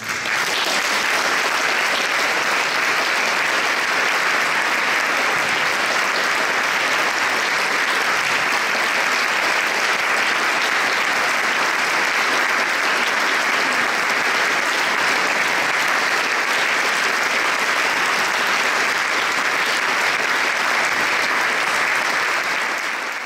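Audience applauding: dense, steady clapping that breaks out suddenly at the start and fades away near the end.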